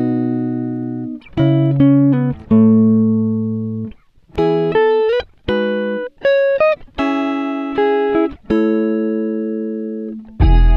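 Background music: chords on a plucked string instrument, struck one after another, each left to ring and fade, with short gaps between them.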